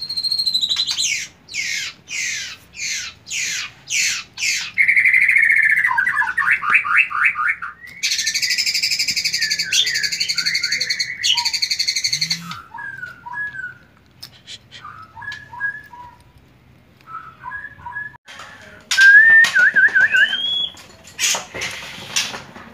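White-rumped shama singing a varied song in breeding condition during pairing. The song opens with a run of quick rising sweeps and a fast trill, then a loud harsh rattle. After a stretch of soft short notes it ends with a loud whistled phrase that includes a trill and a rising note.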